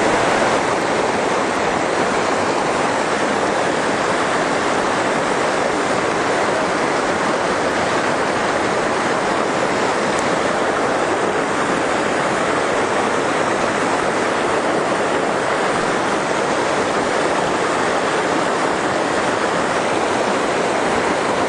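A shallow river rushing over rocks and boulders, a steady, unbroken water noise.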